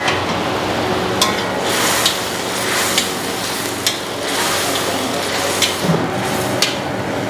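Chicken pieces bubbling and sizzling in a thin pepper gravy in a metal kadai, the gravy at the boil to cook the chicken through. A spatula stirs the pan, scraping and knocking against the metal with a few sharp clicks.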